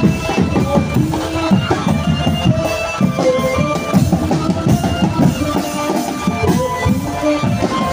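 Drum band playing: a dense beat of drums and bass drum under a melody line of held notes that step from pitch to pitch.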